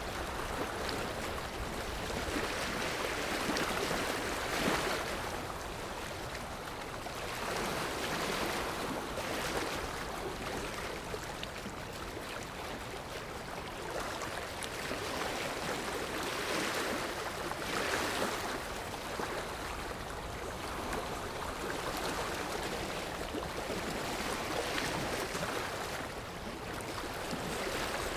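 Ocean waves washing on a shore, a steady rush that swells and ebbs every few seconds.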